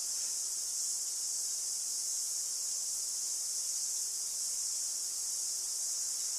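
Steady, high-pitched drone of an insect chorus, unbroken and unchanging.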